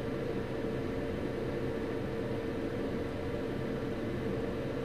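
Steady whirring hum of a small electric fan, with a constant mid-pitched tone running through it.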